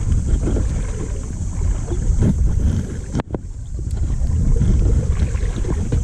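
Wind buffeting the microphone over moving river water, a steady low rumble. A single sharp click a little past three seconds in.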